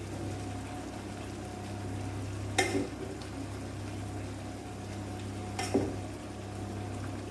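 A spoon knocking twice against a pot, about three seconds apart, as cooked rice is transferred into a pan of vegetables, over a faint frying sizzle and a steady low hum.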